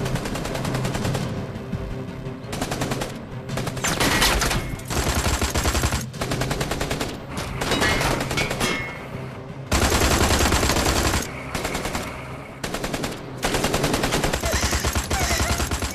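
Long bursts of rapid automatic gunfire from a fully automatic weapon, many shots a second, with short breaks between bursts, as an action-drama sound effect.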